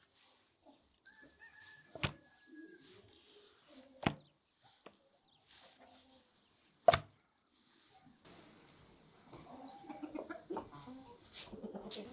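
A few sharp knocks as raw chicken pieces are handled on a steel tray, the loudest about seven seconds in. Then, from about eight seconds, chickens clucking.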